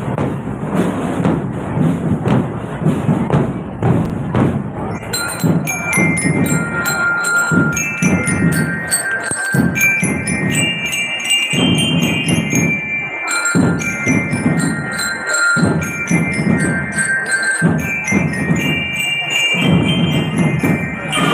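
Marching drum band playing: drums beat a steady rhythm alone for about the first five seconds, then a bright bell lyre melody comes in over the drums and carries on.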